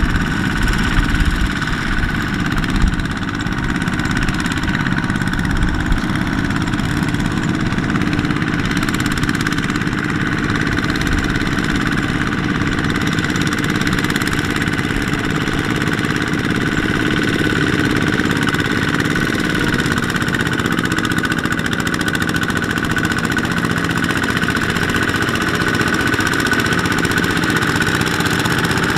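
Single-cylinder Kubota ZT155 diesel engines of two-wheel walking tractors running steadily under load, pulling loaded trailers through deep mud.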